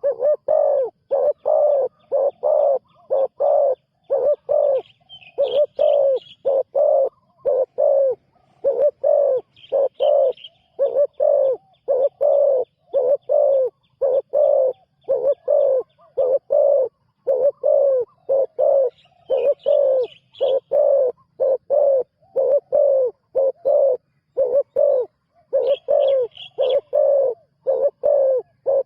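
Spotted dove cooing over and over in a steady run of short, low coos, about one or two a second. Now and then, four times in all, smaller birds chirp briefly and faintly higher up.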